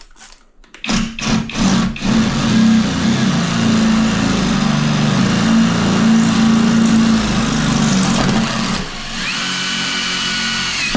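Power drill boring into a hard ceramic wall tile: a few short trigger bursts, then steady drilling, with a high whine joining in near the end as the bit grinds through the hard glaze.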